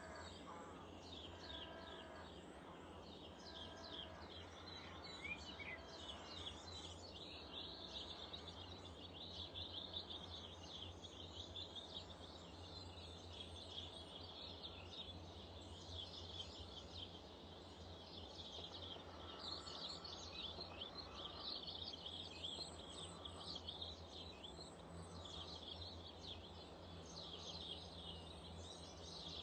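Small garden birds at feeders keep up a dense, high twittering and chirping. Through the first seven seconds a lower, harsher call repeats about once a second, over a faint steady low hum.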